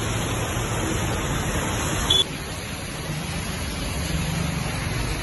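Heavy rain pouring down on a city street as a steady hiss, with motorbikes and other traffic running through the wet road underneath. About two seconds in there is a brief click and the downpour continues slightly quieter.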